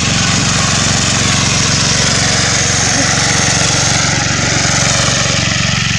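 A small engine running steadily with an even hum, under the hiss of muddy water rushing over the ground.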